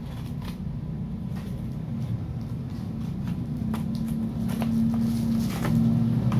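A motor vehicle's engine running nearby, growing louder toward the end, with scattered light clicks of handling.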